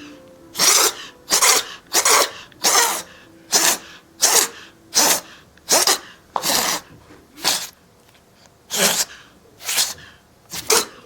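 A kitten sneezing over and over: about a dozen short, sharp sneezes in quick succession, roughly one every three-quarters of a second, with a brief pause about eight seconds in before a few more.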